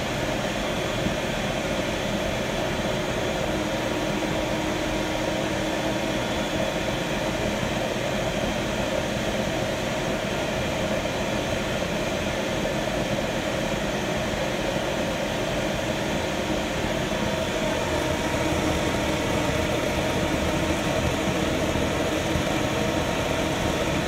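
Propane torch burner firing into a small homemade cement forge: the steady rushing roar of the flame, a little louder over the last several seconds.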